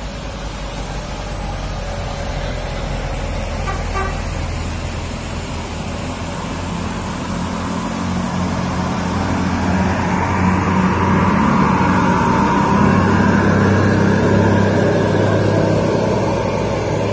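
Diesel engines of a box truck and a full-size coach labouring up a steep hill, growing louder as the bus comes close, over a steady hiss of tyres on the wet road.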